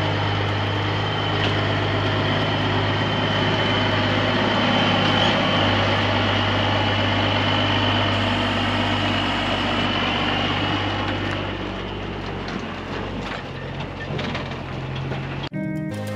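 Diesel engine of a semi truck running as the tractor-trailer rolls slowly by, a steady low engine note with a thin high whine over it for most of the time. It grows a little quieter near the end.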